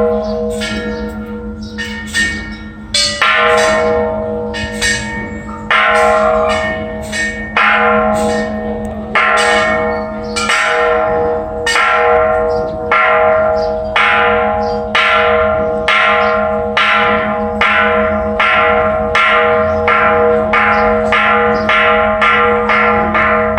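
Bell in a Thai Buddhist temple's bell tower, struck over and over, each stroke ringing on into the next above a steady low hum. The strokes come unevenly at first, then quicken into an even beat of a little more than one a second.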